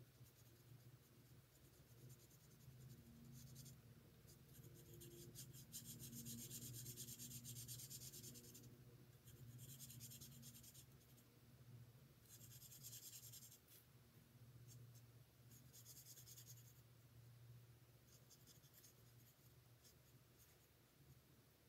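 Faint scratchy strokes of a Stampin' Blends alcohol marker tip colouring on cardstock, coming in several stretches of one to three seconds each, over a low steady hum.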